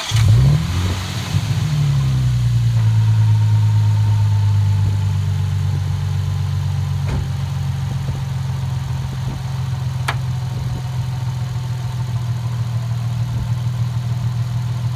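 A warm Nissan 350Z 3.5-litre V6 catching: its revs rise briefly in the first couple of seconds, then settle into a steady idle. Two sharp clicks come over the idle later on.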